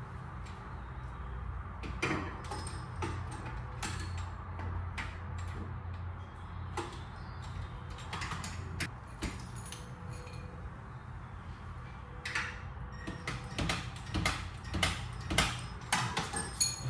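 Scattered metallic clicks and knocks of hand tools working on a car's front suspension, coming more often near the end, over a steady low hum.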